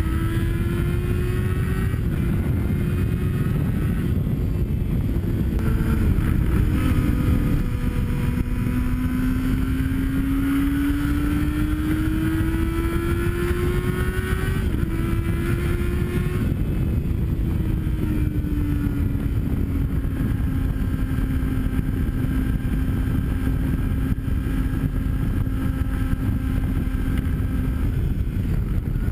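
Yamaha sport bike's engine under way, its note climbing in long pulls as the bike accelerates in the first half, then dropping back and holding a steady cruising pitch, with a brief rise near the end. Wind rushes over the bike-mounted camera throughout.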